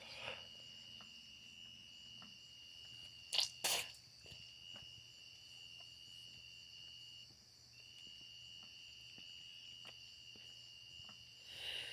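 Faint crickets chirping in a steady high trill that stops for a moment about seven seconds in. Two short, sharp noises come close together a little over three seconds in.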